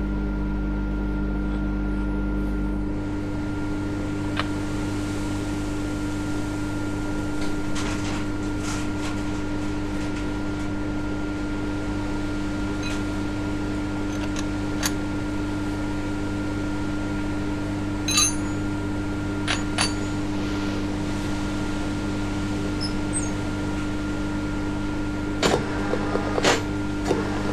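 A steady mechanical hum, its lowest part dropping out about three seconds in, with scattered metallic clinks as a spanner and steel clamping parts are handled on a milling machine table, a few of them close together near the end.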